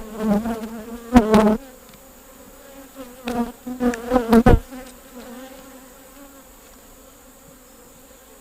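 Honeybees buzzing around an opened hive, a steady hum with two louder swells of wavering pitch as bees fly close by. Each swell includes sharp knocks, about a second in and again around four and a half seconds.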